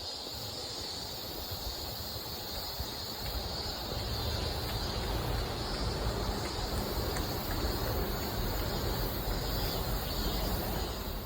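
Outdoor city ambience: a steady low rumble of traffic with a steady high hiss on top, growing slightly louder about halfway through.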